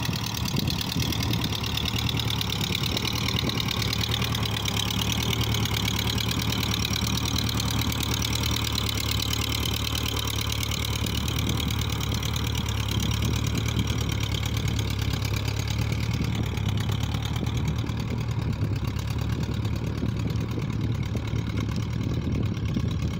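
Ferguson TO-20 tractor's four-cylinder engine running steadily while pulling a harrow across tilled ground, growing a little duller in its higher tones over the last few seconds as the tractor moves off.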